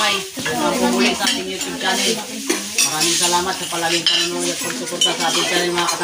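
Dishes, pots and cutlery clinking and scraping, many short sharp strikes.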